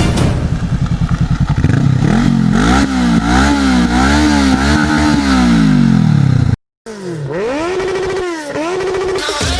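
Honda CBR motorcycle engine revving through its exhaust, the pitch climbing and dropping several times as it pulls through the revs. The sound cuts out briefly about two-thirds through, then more quick rises and falls in revs.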